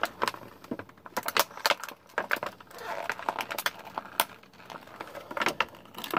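Hard plastic clicking and rattling in irregular bursts, with a stretch of rustling about three seconds in. It is a Bakugan ball being worked at to pry it out of a hole in its plastic packaging that is too small for it.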